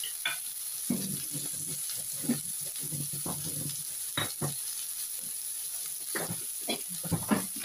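Shrimp and vegetables sizzling in a non-stick frying pan: a steady hiss with scattered short pops and taps, more of them near the end.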